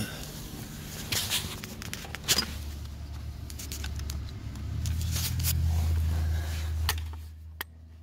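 Handling noise: knocks, taps and rustling as a phone camera is moved around and hands work under a car's dashboard, over a low rumble that swells in the middle and fades near the end.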